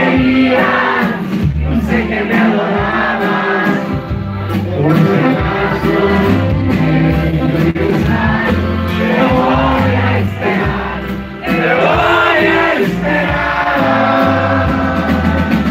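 Live band music led by a diatonic button accordion over a steady bass line, with a man singing and the crowd audible underneath.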